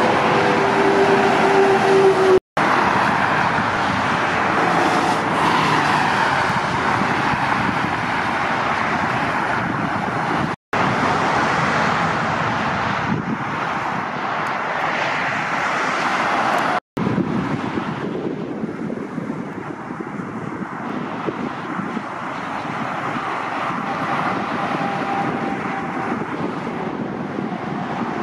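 Motorway traffic: heavy lorries and cars passing at speed, a steady rush of tyre and engine noise. The sound drops out to silence for a split second three times, where short clips are cut together.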